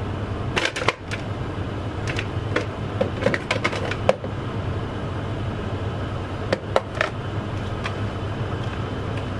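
Hard plastic clicking and knocking as a Combi microwave steam sterilizer case is opened and its smaller inner case lifted out and handled: a scattering of sharp taps, bunched around the first second, the middle, and about seven seconds in, over a steady low hum.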